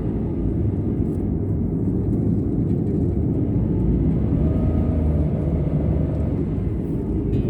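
Steady low rumble of a vehicle running, with a faint tone that rises and falls about halfway through.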